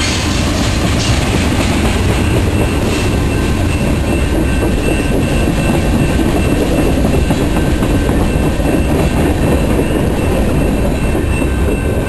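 Freight train of tank cars and boxcars rolling past at close range: a steady heavy rumble of steel wheels on rail, with a few sharp clicks in the first three seconds and faint high steady tones above the rumble.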